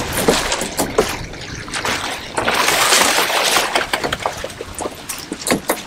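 Water splashing loudly beside a boat's hull as a hooked mahi-mahi thrashes at the surface while being brought aboard, peaking about two and a half seconds in for about a second. Sharp knocks and clatter from the boat come and go around it.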